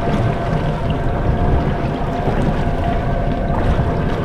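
Steady wind noise on the microphone over choppy sea washing against a fibreglass boat hull.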